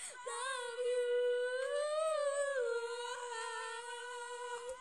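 A girl's voice holding one long high sung note, wavering slightly in pitch, with a short break just after the start.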